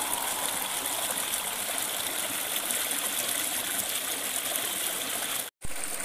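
A small rocky stream rushing over a low cascade: a steady wash of flowing water. It cuts out for an instant near the end.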